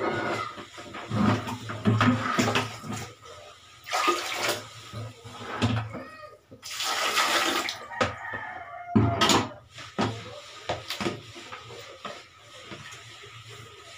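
Water splashing and sloshing in plastic basins during hand-washing of laundry, with irregular knocks as empty plastic buckets and a basin are moved and stacked.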